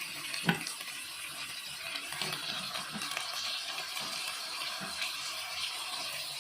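Shrimp and squid sizzling as they sauté in butter with onion, garlic and ginger in a pan, a steady hiss, with one sharp clack about half a second in.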